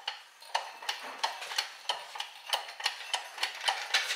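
Sharp, fairly regular ticking, about three light clicks a second.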